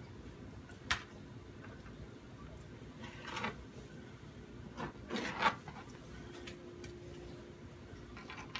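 Wide-bladed kitchen knife slicing through raw pork shoulder on a plastic cutting board: a sharp tap of the blade about a second in, then rasping cutting strokes around three seconds in and again, louder, around five seconds in.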